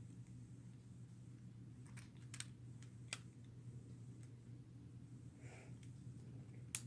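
A few scattered sharp plastic clicks from a Lego Technic butterfly knife being handled, over a low steady hum.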